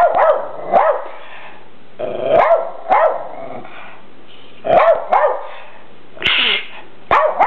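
Rat terrier barking in short bursts of one or two barks, with pauses of about a second or more between them.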